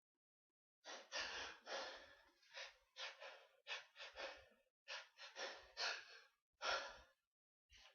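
A quick run of about a dozen short, breathy gasps and huffs during a sneezing fit.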